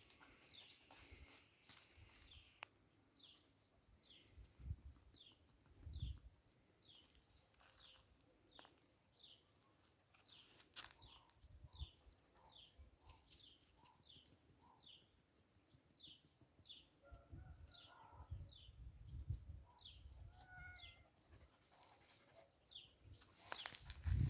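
Faint bird chirping: one short, high, falling chirp repeated evenly, roughly every half-second to second, over a quiet background with a few low rumbles.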